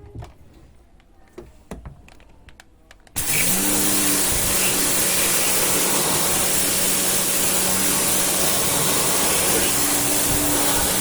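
A few light clicks and knocks, then about three seconds in an electric pressure washer (jet cleaner) switches on: its motor spins up and runs steadily with a loud hiss of spray.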